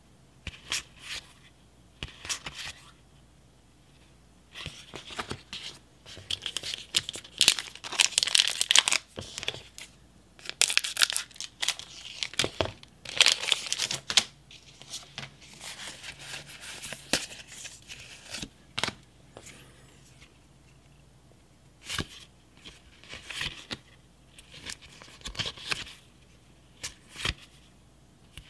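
A foil Pokémon booster-pack wrapper being torn open and crinkled, in a run of loud rustling bursts through the middle. Before and after, trading cards are slid and flicked through the hands in short clicks.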